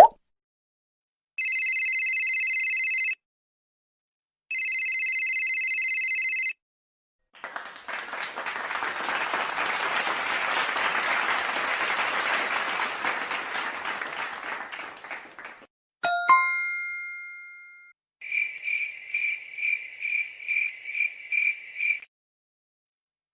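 A run of separate stock sound effects: two identical electronic tones of about two seconds each, then about eight seconds of applause that swells and fades. A single bell ding rings out after that, followed by a rapid ringing of about nine pulses.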